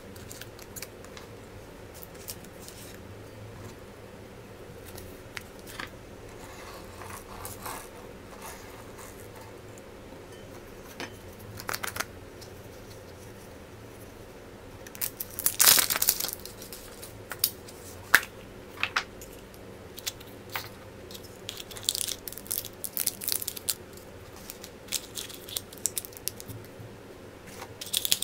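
Surprise eggs and their wrappers being handled and opened: foil or plastic wrappers crinkling and tearing, mixed with scattered sharp clicks of small plastic parts. The loudest burst of crinkling comes a little past the middle.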